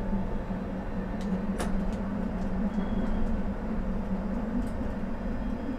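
Electric tram running along street track, heard from the driver's cab: a steady low hum and rumble of the moving tram, with a couple of sharp clicks about a second and a half in.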